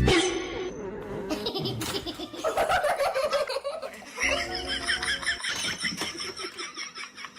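Someone laughing over background music.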